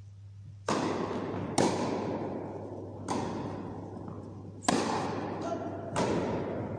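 Tennis rally in an indoor hall: five sharp pops of racket on ball and ball on court, about one to one and a half seconds apart, each ringing out in the hall's echo.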